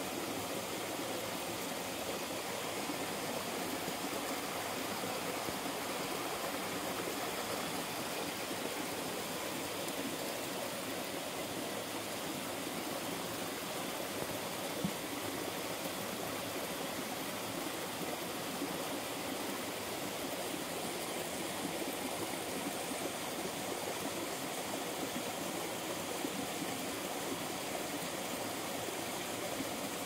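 Running water rushing steadily over rocks, an even noise without a break.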